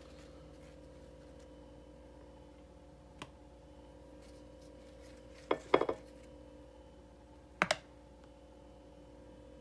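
Hands handling a plastic container and squirrel meat on a kitchen counter: a few sharp clicks and light knocks, with a faint one about a third of the way in, a quick cluster a little past halfway and a double click near the end. A steady low hum runs underneath.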